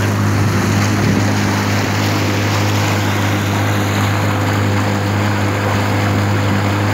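Small motorboat under way: its engine runs steadily at an even pitch, over a constant rush of water along the hull.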